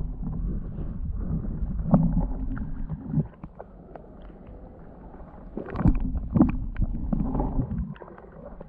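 Muffled low rumbling and sloshing of pond water around a camera held at or just under the surface, with scattered clicks. It comes in two spells, quieter for a couple of seconds in the middle.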